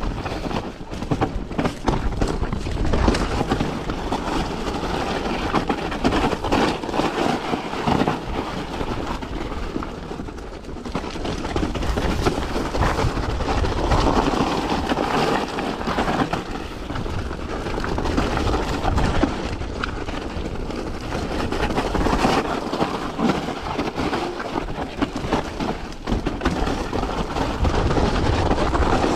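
Mountain bike rolling fast down a rocky trail: tyres crunching over loose rock and gravel, with a steady rattle of small knocks from the bike over the bumps.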